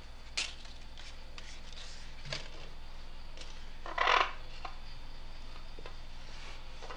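Paper photographs being handled and shifted on a glass animation table: a few soft rustles and taps, the loudest a short paper rustle about four seconds in, over a steady low hum.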